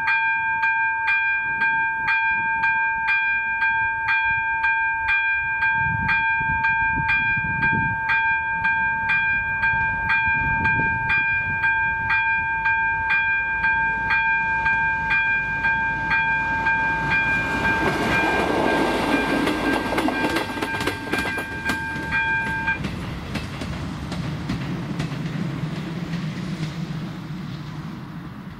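Level-crossing warning bell (type ZV-02) ringing in an even beat of about two strikes a second, then cutting off suddenly about three-quarters of the way through. Shortly before it stops, a train passes over the crossing with wheels clattering on the rail joints, and its low rumble fades away afterward.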